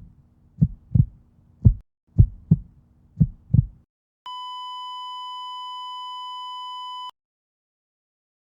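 Heartbeat sound effect, low double thumps about a second apart, then a steady electronic beep held for about three seconds: a heart-monitor flatline tone.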